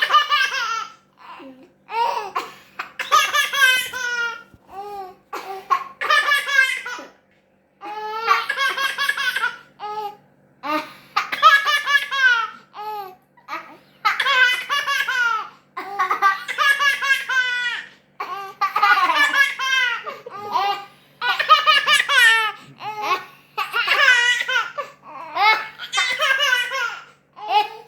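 A baby laughing in repeated high-pitched bouts, one every second or two, with short gasps between them. The laughter is set off by someone's coughing.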